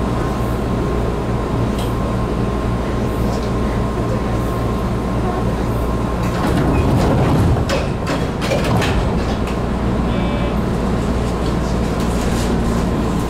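JR Kyushu series 415 electric train standing at a station, its onboard equipment running with a steady hum and a faint high tone. About six seconds in there is a louder rush with several sharp clacks, and a little later a brief high beep.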